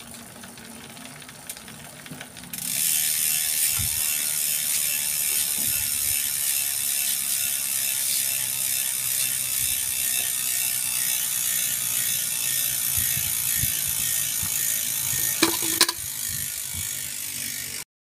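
Bicycle drivetrain turning over quietly for a couple of seconds. Then, once the pedalling stops, the rear freehub ratchets in a steady dense buzz of pawl clicks as the wheel coasts in the stand. The buzz drops off near the end.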